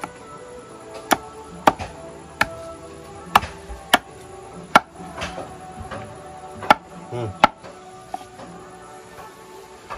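Machete chopping raw pork on a wooden plank: about eight sharp, irregularly spaced chops, over background music.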